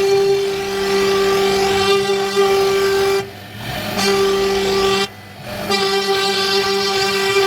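CNC router spindle running with a steady high whine at one pitch, dropping away briefly twice.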